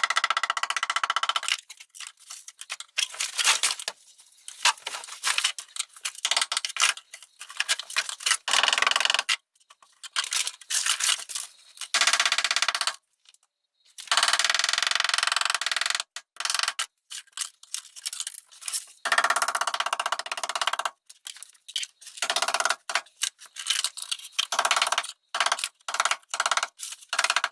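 Ball peen hammer striking the bitumen sound deadening on a car's sheet-metal floor again and again, the panel ringing after each blow. The sound breaks off abruptly a few times.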